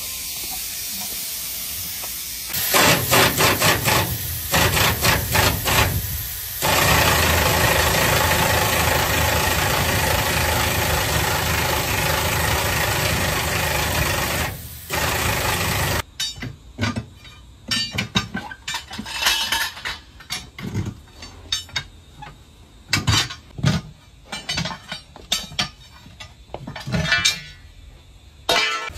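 Truck tyre repair work: a few seconds of choppy bursts from a power tool, then a long steady loud hissing noise that cuts off about halfway through, then a run of irregular sharp knocks and clanks.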